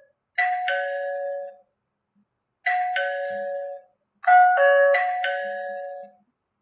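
Wire-free Wi-Fi doorbell chime ringing a falling two-note ding-dong three times, about two seconds apart, each ring dying away. The third ring doubles up with extra overlapping notes.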